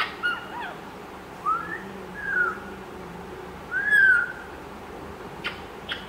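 Young African grey parrot whistling: three short whistles that rise and fall in pitch, the last and loudest about four seconds in. A few short sharp squeaks or clicks come at the start and again near the end.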